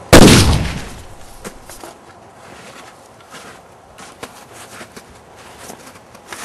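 A single loud bang just after the start, ringing out and dying away over about half a second, followed by faint scattered footsteps.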